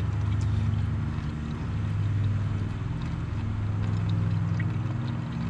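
Transmission additive pouring from its can through a funnel into the filler tube, over a steady low motor hum.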